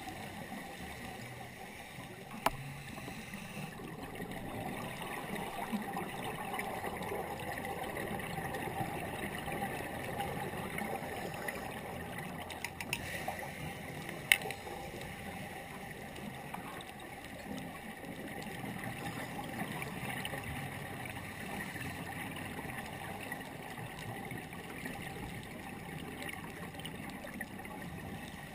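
Muffled, steady underwater noise heard through a diving camera's housing, swelling and easing slowly, with two sharp clicks, one a couple of seconds in and one about halfway.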